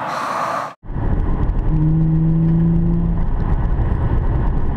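Inside the cabin of a 2013 Audi S4 at speed: a deep, steady rumble of road and engine noise, with a steady engine drone in the middle lasting about a second and a half. It begins abruptly under a second in, replacing an airy hiss.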